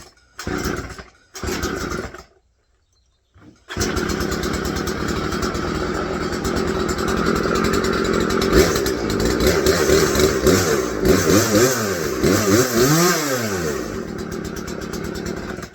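Two-stroke chainsaw being pull-started on half choke: a few short bursts from the pull cord, then the engine catches about four seconds in and keeps running. Near the end it is revved up and down several times. A freshly repaired saw that now starts and runs.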